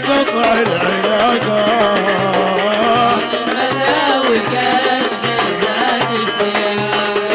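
Middle Eastern wedding band music in an instrumental passage between sung lines: a wavering melody over a steady drum beat.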